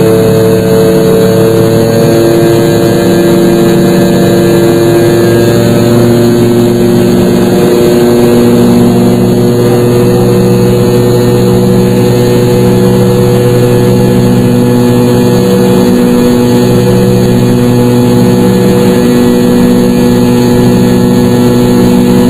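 Jet airliner engines droning steadily, heard from inside the passenger cabin while climbing after takeoff. Several steady hum tones sit over an even rushing noise, with a slow throb pulsing about every second and a half.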